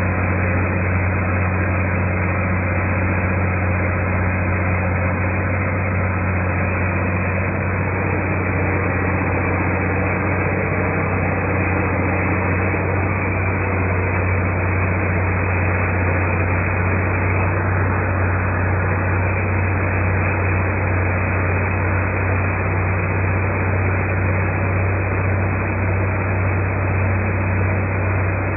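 The Cat 3406B inline-six diesel engine of a Precision Husky ProGrind 4000 tub grinder running steadily, a loud deep hum that does not change.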